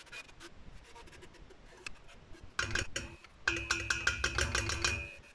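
Wooden spoon stirring sliced mushrooms, potatoes and onion in a stainless steel pot: a quick run of knocks and scrapes against the pot starting about two and a half seconds in, with a held ringing tone from the metal during the second, longer run.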